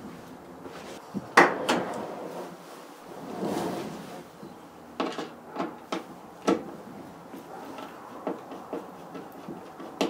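Metal clunks and knocks from a Ford Transit van's sliding door being moved and handled, the loudest about one and a half seconds in. Near the end comes a run of light clicks as a Torx screwdriver works the screws at the bottom of the door's inner panel.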